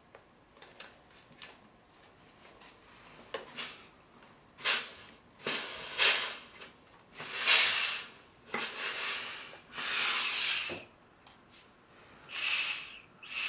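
Steam iron pressing a folded fabric edge: light taps and rustles, then from about four seconds in a run of hissing steam bursts, each half a second to a second long.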